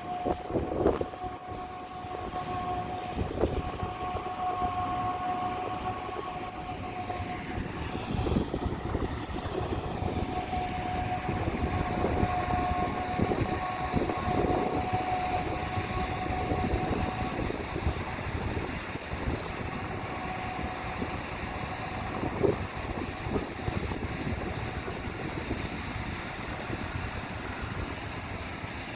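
Heavy harvest machinery running in a wheat field: a continuous diesel rumble with irregular knocks and a steady high whine that fades out a little over halfway through.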